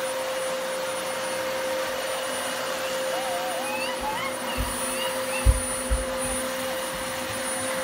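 Upright vacuum cleaner running steadily with a constant whine, with a few dull thumps a little past halfway.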